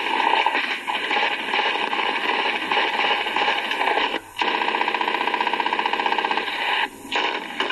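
Sustained rapid machine-gun fire from a war film soundtrack, heard thin and tinny through a computer speaker. It breaks off briefly about four seconds in and again near the end.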